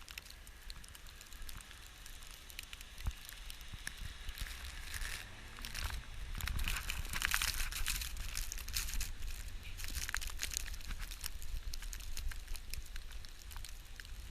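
Footsteps crunching and squeaking through snow, with rustling. It grows louder about halfway through, then settles.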